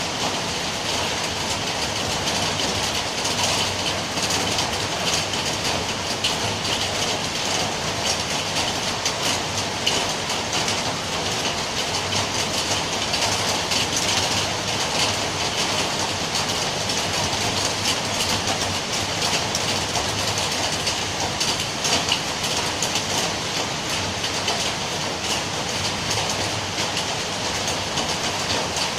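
Steady heavy rainfall: a dense, even hiss of drops with fine crackling ticks.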